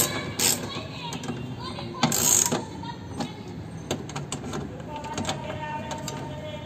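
Socket ratchet clicking in short runs as the bolts holding a power window regulator motor are tightened inside a car door, with a louder burst of fast clicks about two seconds in.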